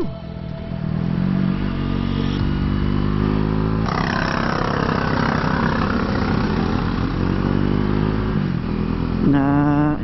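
KTM Duke 390's single-cylinder engine running under the rider. The revs rise briefly about a second and a half in, then fall slowly as the bike eases off, and a rush of noise joins about four seconds in.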